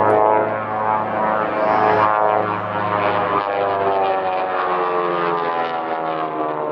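Twin radial piston engines of a Beech 18 aerobatic plane droning steadily overhead, their pitch slowly falling.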